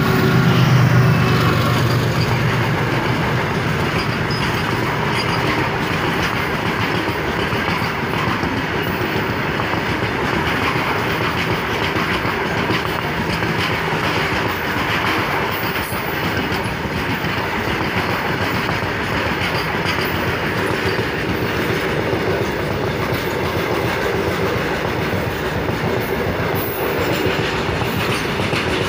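WDG4G diesel locomotives' low engine drone fades out in the first couple of seconds as they pass. A long freight train of open wagons then rolls steadily by close at hand, its wheels clattering over the rail joints.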